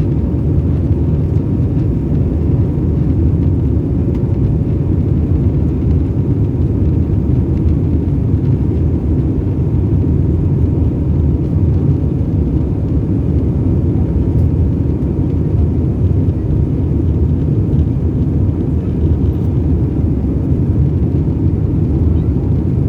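Airbus A320 cabin noise in the climb: a steady, loud low rumble of the engines and rushing air, with a faint steady hum above it.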